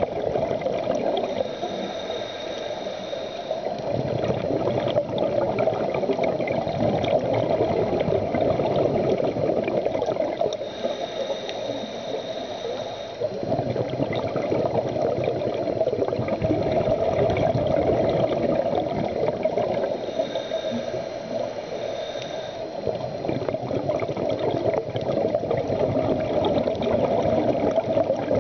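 Scuba diver breathing underwater through a regulator: long spells of bubbling exhaled air, with quieter gaps roughly every ten seconds. Three of those gaps carry a faint high whistle.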